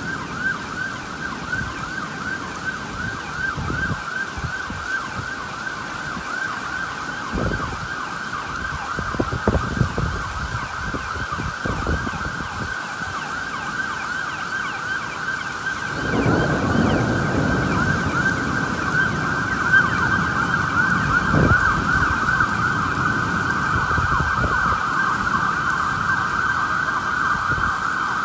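Emergency vehicle siren sounding continuously in a fast, repeated rising-and-falling yelp over a rain-soaked street. Low storm noise of wind and rain grows louder about halfway through.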